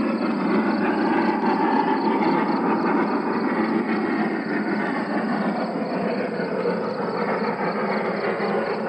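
A train running: a steady, dense noise with faint regular ticks.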